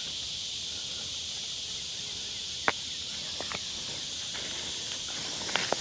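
Steady high-pitched hiss of an insect chorus, with a few faint clicks about halfway through and again near the end.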